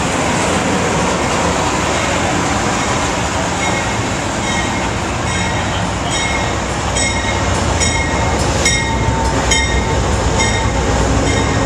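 Amtrak GE Genesis diesel locomotive and its train rolling into the station alongside the platform, a steady loud rumble of engine and wheels. From about four seconds in, a short high ringing sound repeats roughly once a second.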